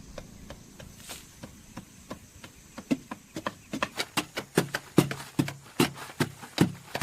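Repeated sharp knocks, faint and sparse at first, then louder and steadier from about three seconds in at roughly two to three a second.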